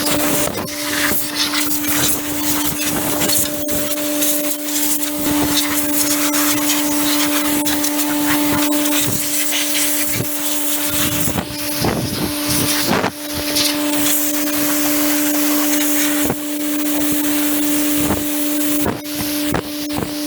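Compressed-air blow gun hissing and blasting dust and chaff off a baler, starting and stopping, over the steady hum of a Hydrovane rotary vane air compressor.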